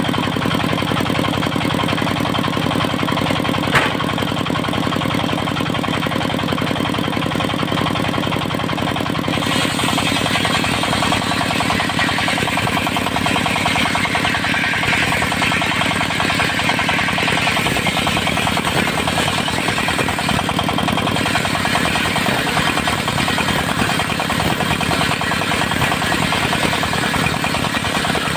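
Diesel engine running steadily, driving a circular sawmill. About nine seconds in, a harsher high-pitched noise joins the engine and goes on, as the saw blade cuts through teak.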